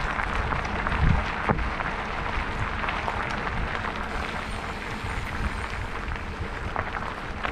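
Mountain bike rolling over a dirt and gravel trail: steady crunching tyre noise peppered with small clicks and rattles, with low wind buffeting on the action camera's microphone now and then.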